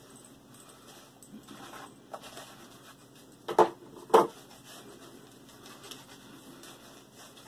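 Soft swishing of a shaving brush working lather onto a bare leg, then two sharp knocks about half a second apart, the loudest sounds, as the lathering bowl is set down on a table.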